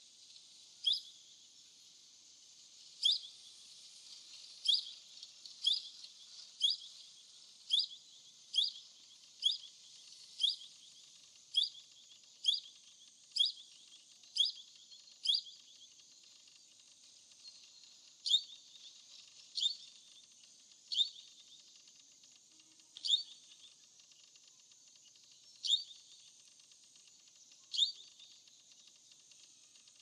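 Plum-headed parakeet giving short, sharp, high-pitched calls, about one a second at first, then after a short pause more sparsely, every one and a half to two seconds, over a steady high hiss.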